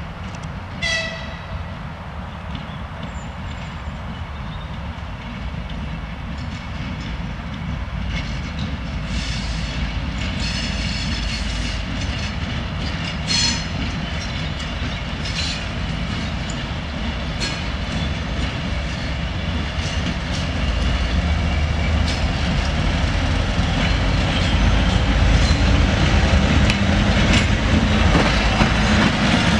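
2M62U twin-section diesel locomotive approaching and passing, its two-stroke diesel engines running with a low rumble that grows steadily louder. It gives a short horn toot about a second in and another about thirteen seconds in, and its wheels click over the rail joints as it comes close.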